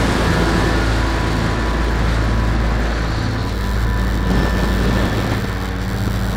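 RC Piper Cub model's engine and propeller running steadily, heard from a camera mounted on the plane, with wind rushing over the microphone.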